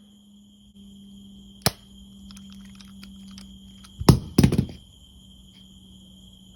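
Homemade Nerf blaster converted to fire airsoft BBs through a taped-in dart barrel, shooting: a sharp click just under two seconds in, then two loud thunks around four seconds in. Crickets chirp steadily under a low hum throughout.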